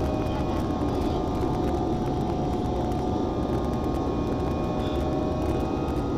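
Steady cabin noise of an Airbus A320-family jetliner climbing after takeoff: jet engines at climb power and rushing airflow, heard from a window seat, with a few faint steady whining tones over the noise.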